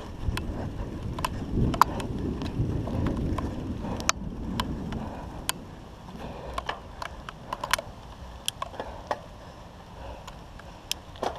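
Mongoose 21-speed mountain bike ridden over bumpy grass: a rough rumble from the tyres and frame with scattered sharp ticks and rattles. The rumble eases after about five seconds.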